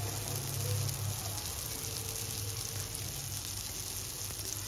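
Kidney-bean galouti kebab patties shallow-frying in a little oil on a nonstick pan: a steady soft sizzle, with a low hum underneath.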